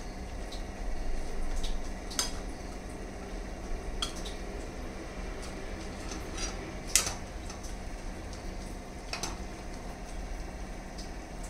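Steel spoon clinking and scraping against a small coated kadai as leafy greens are stirred and tossed, with a few sharp clinks standing out, the loudest about seven seconds in, over a steady low background hum.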